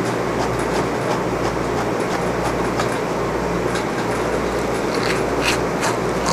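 A steady mechanical whir with a low rumble that pulses about once a second, and a few faint short scratches over it.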